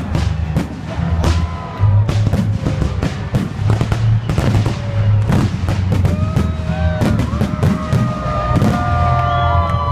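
Fireworks salute going off in a dense run of bangs, with children and a crowd shouting and cheering over it; the long held yells grow stronger near the end.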